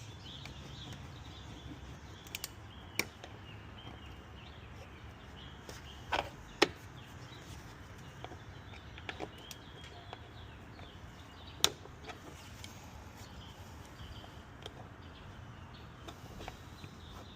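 A flat-head screwdriver prying at the plastic retaining clips of a Nissan Altima's front bumper cover: a handful of separate sharp clicks and snaps, the loudest about six and a half and eleven and a half seconds in, over a steady low hum.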